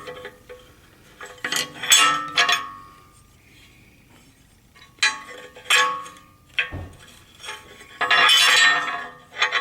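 Steel mower parts clinking and clanking against each other as they are handled and fitted, each knock ringing briefly. Knocks come in groups: about two seconds in, again around five to six seconds, and a longer, louder stretch near the end.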